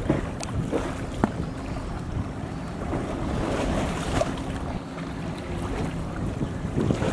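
Wind buffeting the microphone over the wash of waves, with a few sharp clicks in the first second and a half.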